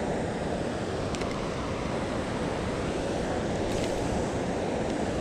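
Steady rushing noise of flowing water and wind on the microphone, with two faint clicks, about a second in and near four seconds.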